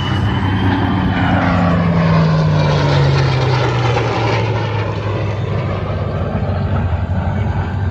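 Propeller airplane engine flying past, its pitch falling over the first few seconds and then holding steady.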